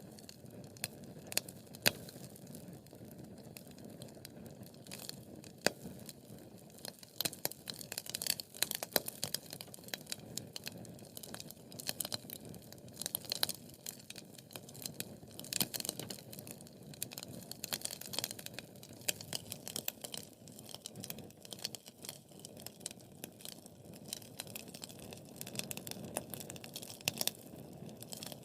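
Wood fire crackling: a steady low hiss with many irregular sharp pops and snaps, coming in denser clusters now and then.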